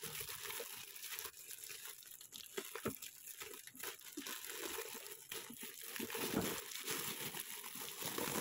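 Clear plastic stretch wrap crinkling and tearing as it is pulled off a pair of plastic stools, in irregular crackles and rustles.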